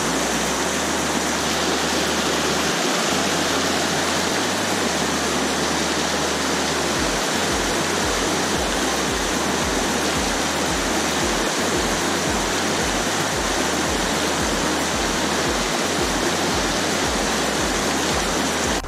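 Loud, steady rushing of flowing river water close to the microphone, with a bass beat of music underneath.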